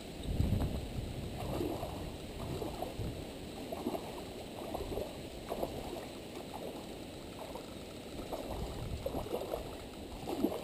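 A hooked carp splashing and thrashing at the water's surface in irregular bursts while being played on a rod, with a dull knock about half a second in.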